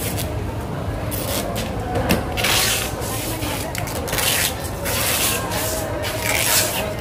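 Knives slicing and scraping through raw yellowfin tuna flesh and skin, in a series of irregular hissing strokes a fraction of a second to half a second long.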